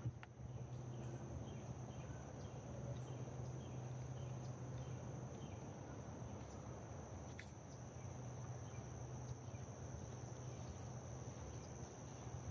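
Insects trilling in a steady, continuous high-pitched drone over a low, even background hum, with a few faint ticks.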